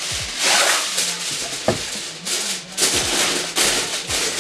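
Aluminum foil being pulled from its box and crinkled as it is pressed over a mixing bowl, in a run of irregular rustling crackles.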